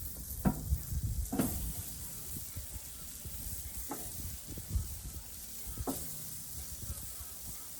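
Seasoned chicken leg quarters and wings sizzling on a hot grill, a steady hiss, with a few light knocks.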